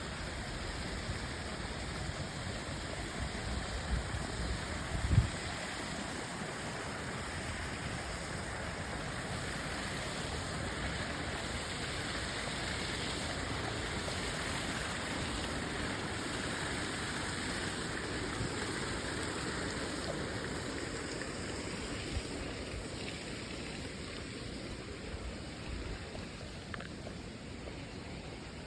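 Steady rushing of flowing water from a mountain stream. A few low thumps sound in the first five or six seconds.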